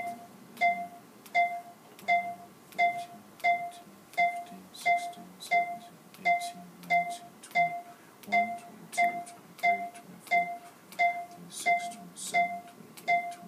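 PulStar chiropractic analysis instrument sounding during a spinal scan: short electronic beeps, each with a sharp click, repeating evenly about every 0.7 s, one per reading of the scan.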